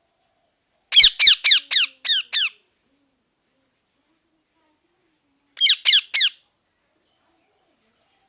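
Parrot calling: a quick run of six short calls, each sliding down in pitch, about a second in, then three more like them near the end.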